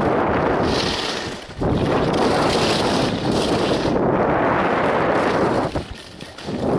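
Wind rushing over the microphone of a skier's camera during a fast downhill ski run, mixed with the hiss of skis running over the snow. The rush drops away briefly about one and a half seconds in and again near the end.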